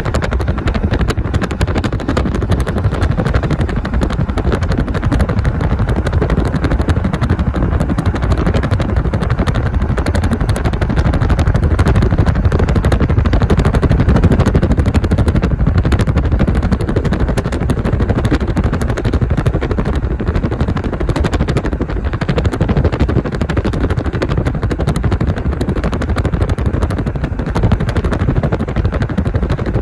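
Road and wind noise of a car travelling at speed, heard from inside the car: a loud, steady rumble with dense rapid crackling all through it.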